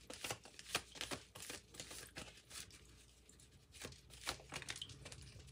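A deck of tarot cards being shuffled by hand: faint, scattered flicks and taps of card against card, with a short pause a little past halfway.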